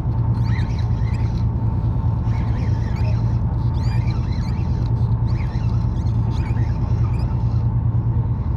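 Spinning reel being cranked, giving small irregular squeaks and creaks, over the steady low hum of the boat's engine.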